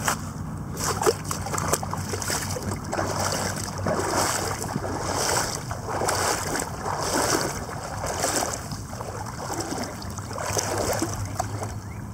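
Kayak paddle strokes in the water: a splashing swish roughly every one and a half seconds, over a steady low hum.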